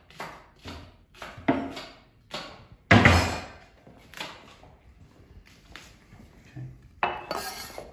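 Kitchen knife chopping vegetables on a wooden chopping board: irregular knocks, roughly one or two a second, the loudest about three seconds in. A longer rustling sound comes shortly before the end.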